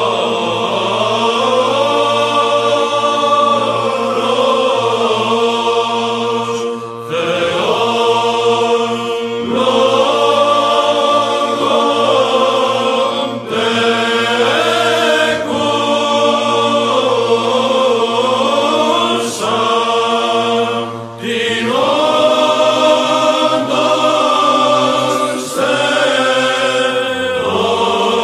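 Male monastic choir singing Byzantine chant in the eighth tone, one melodic line over a steady low held drone (ison), with short breath pauses between phrases. The drone steps down to a lower note near the end.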